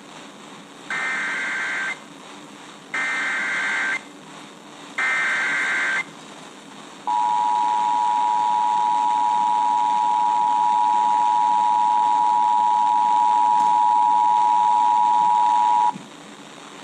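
Emergency Alert System header: three one-second bursts of SAME digital data warble, a second apart, followed by the steady two-tone EAS attention signal (853 and 960 Hz) held for about nine seconds and cutting off abruptly, marking the start of a new alert. Faint radio hiss fills the gaps between the bursts.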